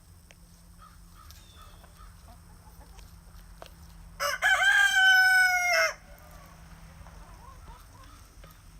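A rooster crowing once, a single long call of nearly two seconds in the middle, with faint chicken clucking around it.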